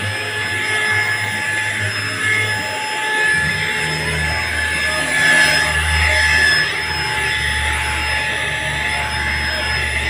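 Deerma handheld anti-dust vacuum cleaner running steadily as its nozzle is worked over sofa upholstery, its motor giving an even high whine. A deeper hum underneath shifts about three seconds in.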